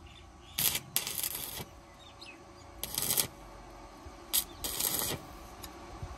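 Gas cutting torch hissing in five short bursts, the longest about half a second, as its flame works on a steel pipe.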